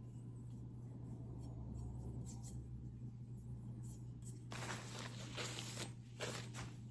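A tissue rustling and rubbing along an oiled knife blade in a wiping stroke, about one and a half seconds long starting past the middle, with a shorter second rub just after, over a steady low hum.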